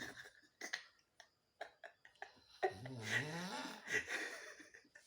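A sleeping man snoring: one drawn-out pitched snore a little past halfway, after a few faint clicks.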